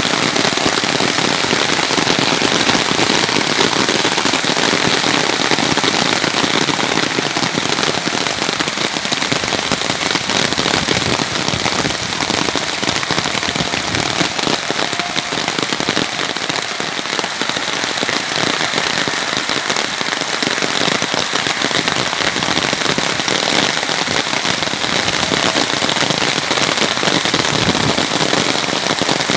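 Hail and rain pelting the ground in a loud, steady patter of countless small, sharp hits.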